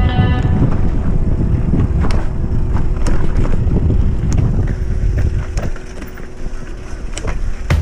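Bike riding fast over a rough trail: heavy wind rumble on the camera microphone, with scattered knocks and clatter from the bike on rocks and roots.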